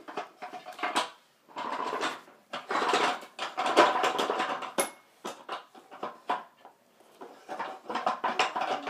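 Wooden toy pieces clattering and knocking as a baby handles a wooden activity cube, in irregular bursts with a longer stretch of rattling about two to four seconds in.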